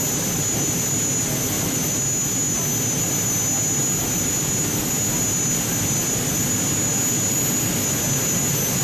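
A jet turbine running steadily, close to an Airbus A380: an even rush with a constant high-pitched whine that does not rise or fall.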